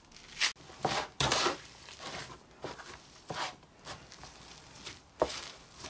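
Hands kneading and pressing a crumbly bread-and-cheese paste on a baking tray: irregular soft crunching and rustling as the bread breaks up under the palms and knuckles, with a sharper press near the end.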